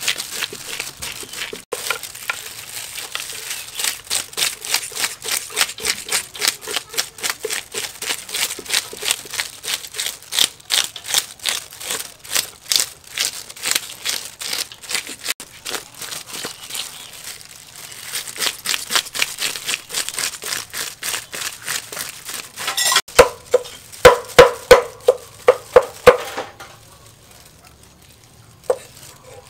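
Fish scaler scraped fast along the body of a whole fish on a wooden chopping board, scales flicking off, in a steady run of scraping strokes about three a second. Near the end comes a short run of louder, sharper strokes, then it dies down.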